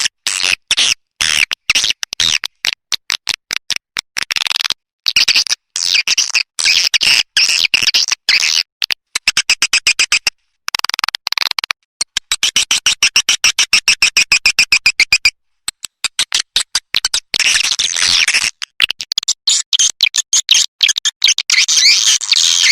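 Swiftlet-caller recording: swiftlet calls in rapid runs of high chirping twitters, several a second, broken by abrupt silent gaps where the loop is cut.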